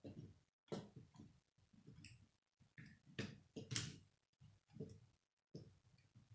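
Faint, irregular clicks and taps of plastic K'nex pieces being handled and fitted at the car's front wheel, with the sharpest click a little before 4 seconds in.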